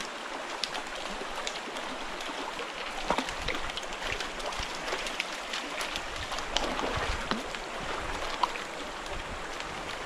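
Small creek running over rocks, a steady rush of water, with scattered light splashes and ticks and a few soft thumps as a hooked brown trout is played and brought to a net in the shallow water.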